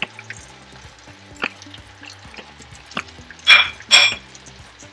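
Wooden spoon stirring chopped green onions into okra and beef in a frying pan, over a faint frying sizzle: a few light knocks of the spoon against the pan, then two louder scrapes near the end.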